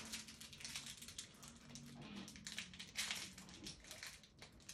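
Fingers picking and tugging at the small stapled wrapper of a solid cleansing balm, giving a run of faint crinkling and rustling crackles.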